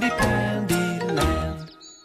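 Opening theme music of a children's TV series: bright chiming, tinkling notes over a bass line, with a new note struck about every half second. The last notes die away near the end.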